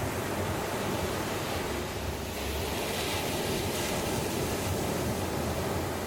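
Ocean surf washing on a beach: a steady rush of waves, swelling a little about halfway through.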